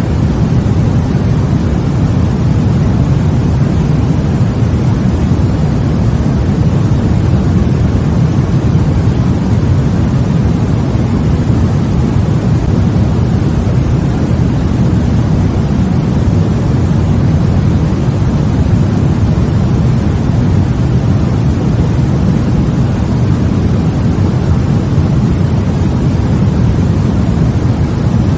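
Loud, steady white noise, a deep rushing hiss with most of its weight in the low end and no change or break.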